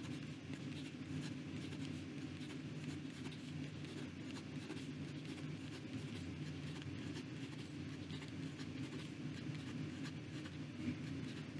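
Sheaffer Targa fountain pen's 14k gold nib writing quickly on notebook paper: faint, steady scratching of short repeated strokes over a low background hum.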